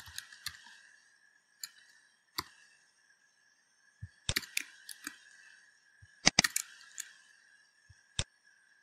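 Computer keyboard keystrokes and clicks, coming singly or a few at a time with pauses of a second or more between them, over a faint steady high hum.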